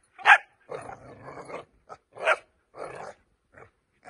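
Five-month-old puppy barking: two loud, sharp barks, one near the start and one a little past halfway, with rough growling and smaller barks between. She is frustrated, wanting the toy.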